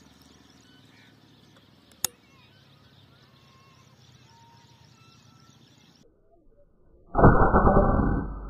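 A single shot from a PCP air rifle: a deep, muffled report about seven seconds in that rings on and fades. A faint sharp click comes about two seconds in, over quiet background.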